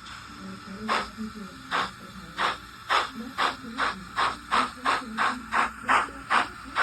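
Simulated steam exhaust chuffs from the sound decoder of a model SE&CR Class 01 0-6-0 steam locomotive, played through its small onboard speaker. The chuffs speed up steadily from nearly a second apart to about three a second as the locomotive pulls away.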